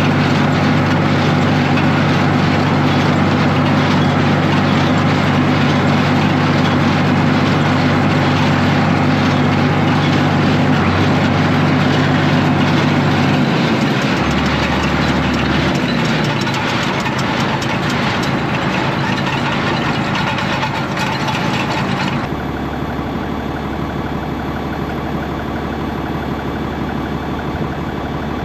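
Tractor engine running steadily while driving a hay baler. About halfway through its note drops, and a few seconds before the end the sound changes abruptly to a lower, quieter steady run.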